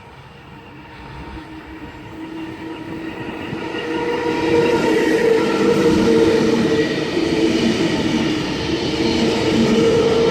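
A train approaching and running through a station, growing steadily louder over the first four seconds and then staying loud, with steady whining tones over the rumble and clatter of the wheels on the rails.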